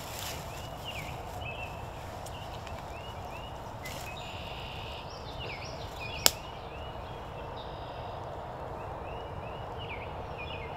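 Songbirds singing: short, repeated, slurred whistled phrases over a steady background. A single sharp click sounds about six seconds in.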